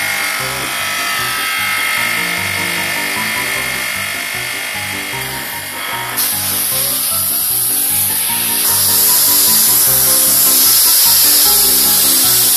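Background music with a steady beat, over the hiss of a pressure washer's water jet. The hiss starts sharply about six seconds in and grows louder near nine seconds, as the jet strips scales off a fish.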